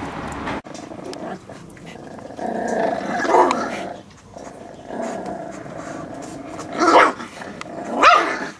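Miniature pinscher puppies growling at each other as they tussle, with two short, sharp yaps near the end.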